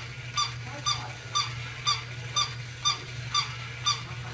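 Grey plush toy kitten, a battery-operated toy, giving short high squeaks evenly about twice a second, over a steady low hum.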